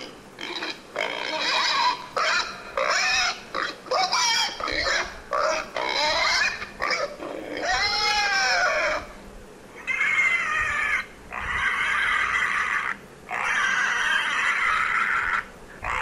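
Pig squealing: a rapid run of short squeals that bend up and down in pitch for about nine seconds, then three long, harsh squeals, each about a second and a half.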